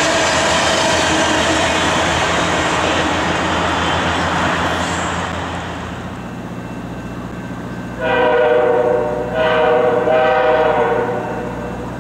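A lit freight-car train rolling past, with a steady rumble of wheels on rail and a steady tone riding over it. Then a diesel locomotive's air horn sounds two blasts, a short one and a longer one.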